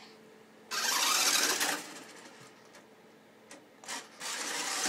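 Toy radio-controlled car driving in short bursts: its electric motor and wheels run loudly for about a second, ease off, then start up again near the end.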